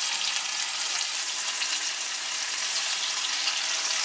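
Coated crappie fillets frying in hot vegetable oil in a skillet: a steady crackling sizzle as another fillet is laid into the oil.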